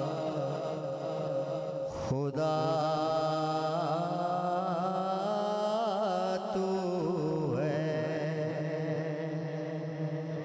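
A man singing a naat through a microphone and PA, unaccompanied, in long held notes that waver in melismatic ornaments, with a short breath break about two seconds in.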